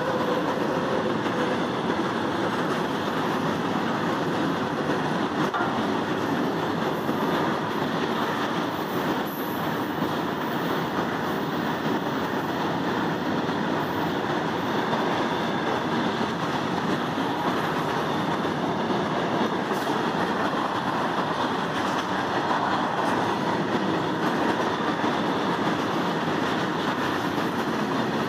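Indian Railways freight train of loaded open-top wagons passing close by at speed: a steady, even noise of steel wheels rolling on the rails.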